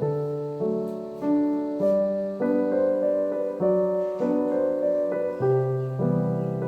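Background piano music: soft chords played at a steady, unhurried pace, a new chord about every half second.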